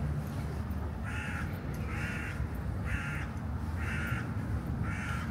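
A crow cawing five times, about once a second, over a steady low rumble.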